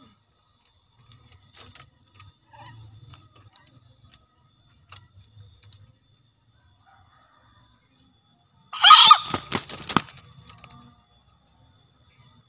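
A male green junglefowl gives a single harsh crow about nine seconds in, lasting about a second and a half. Before it there are only faint scattered clicks.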